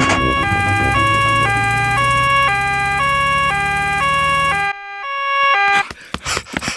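Cartoon two-tone "nee-naw" emergency siren alternating between a high and a low note about every half second over a low engine hum, as the doctor's vehicle arrives; the siren and hum cut off about three-quarters of the way through, then one last note sounds briefly.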